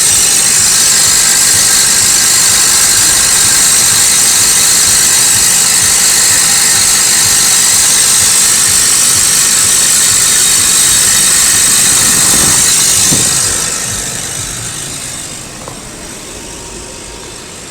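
Nissan Serena C25 exhaust running with a loud rattling noise from the muffler, a fault traced to the center exhaust pipe assembly. The sound drops away noticeably about thirteen seconds in.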